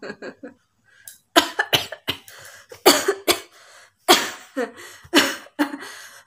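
A person coughing over and over on purpose: about eight harsh coughs in quick succession, starting about a second in.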